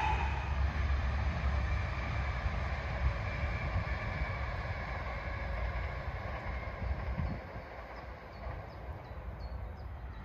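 Deutsche Bahn ICE high-speed train passing, a steady rushing rail noise that fades as the train draws away.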